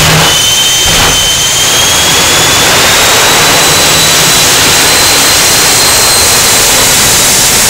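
Jet car's turbine running at high power: a loud, steady rushing noise with a high whine that rises in pitch about two to four seconds in, then holds.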